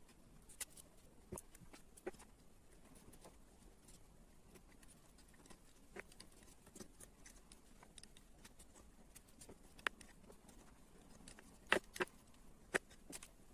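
Scattered light clicks and taps of small plastic construction-kit parts being handled, irregular and sparse, with a few sharper knocks near the end.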